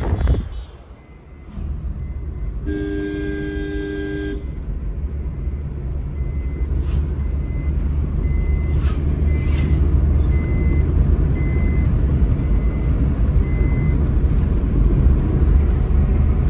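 Car cabin noise while driving: a steady low engine and road rumble. About three seconds in, a vehicle horn sounds once for about a second and a half, and later a faint short beep repeats at a steady pace.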